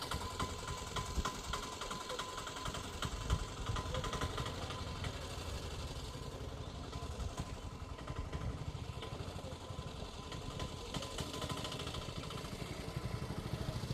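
An engine running, with a rapid uneven pulsing.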